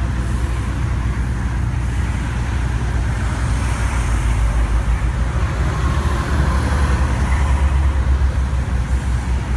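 Interstate highway traffic passing close by at speed: a steady rumble of tyres and engines, swelling louder as a vehicle goes by between about six and eight seconds in.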